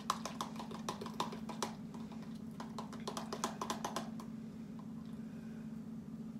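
A table knife clicking and scraping against a mayonnaise container in quick, irregular taps, stopping about four seconds in. A steady low hum runs underneath.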